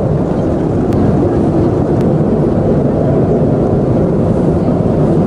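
Steady low rumble of an airliner's cabin noise.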